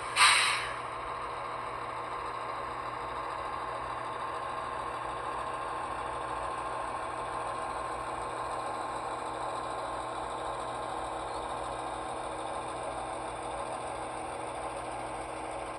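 HO scale model diesel locomotive's engine sound running steadily, with a short loud burst of noise just after the start that dies away within about half a second.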